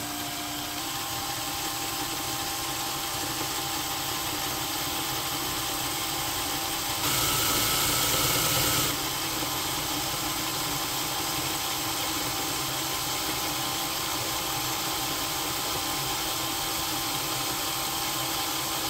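Cordless drill motor running steadily while a Spyder Mach Blue bit cuts into oiled hard steel under light pressure. Its pitch steps up slightly about a second in, and from about seven to nine seconds the cutting gets louder and hissier.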